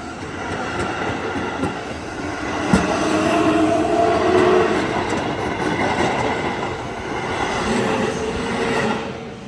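Passenger train running by: a steady rail rumble with whining tones over it and a sharp clack about three seconds in. The sound drops away near the end.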